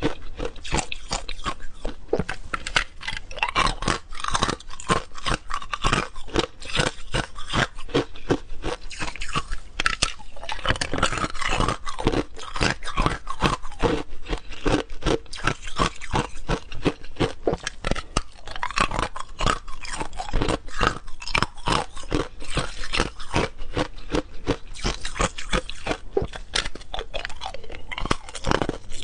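A person biting and chewing hard ice: a rapid, unbroken run of sharp crunches, several a second, as pieces of a block of frozen ice cubes are cracked between the teeth.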